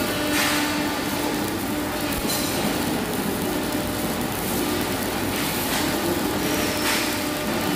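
Stick welding arc crackling and hissing steadily as the electrode burns into the metal.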